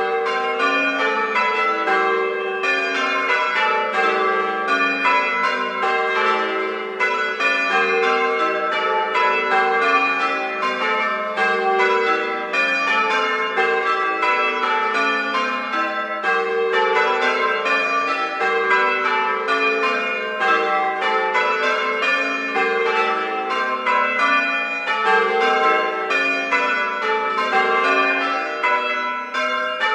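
A peal of church bells ringing changes: many bells struck one after another in quick succession, their tones overlapping, without a pause.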